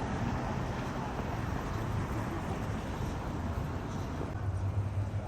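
City street ambience: a steady wash of traffic noise, with a low engine hum growing stronger near the end.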